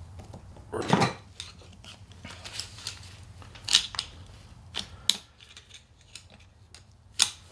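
A steel snap ring being worked over the bearing into its groove on an NP231 transfer case with snap ring pliers and a pick: a series of sharp metallic clicks and scrapes, with a fuller knock about a second in.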